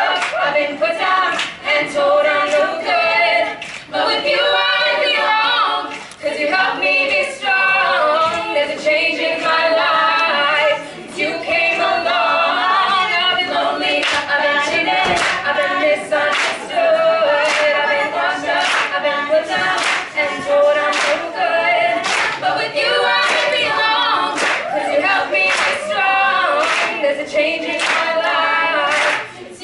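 All-female a cappella group singing in close harmony, with no instruments, while the singers clap a steady beat.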